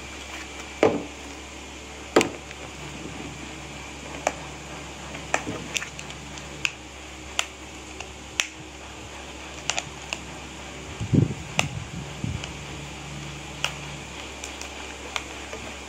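A series of irregular sharp clicks and light taps, about one every second or so, over a steady low hum.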